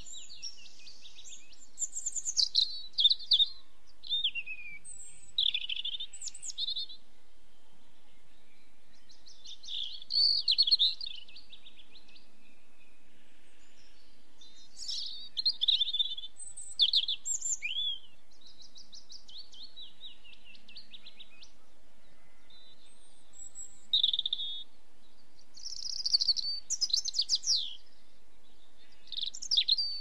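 Small songbirds singing high, quick trilling and warbling phrases, a burst every few seconds with short gaps between.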